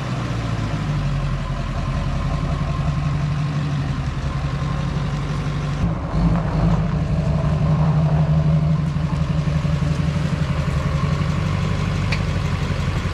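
LBZ Duramax 6.6-litre V8 turbodiesel in a pickup running steadily at low speed, a low, even engine hum throughout.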